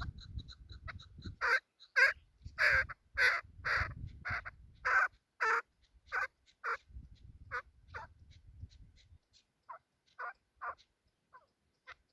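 Chukar partridge calling: a long run of loud, harsh repeated notes, about two a second, that starts a moment in, then thins out into scattered notes.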